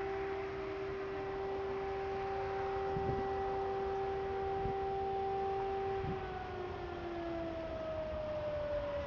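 DS977 electric motor siren holding its steady test-alarm tone, then winding down, with the pitch falling steadily from about six seconds in.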